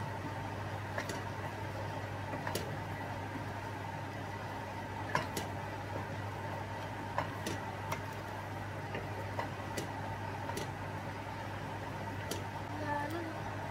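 Wooden spoon stirring spinach through a thick cream sauce in a stainless steel pan, knocking against the pan in a dozen or so irregular light taps, over a steady low hum.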